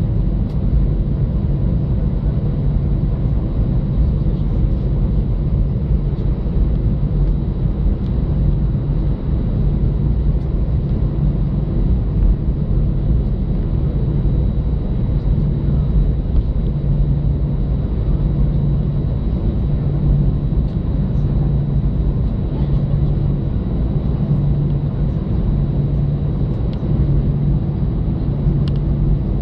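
Airbus A320's CFM56-5A1 engines at idle, heard inside the cabin while the aircraft taxis: a steady rumble with a low throb that pulses about every two seconds.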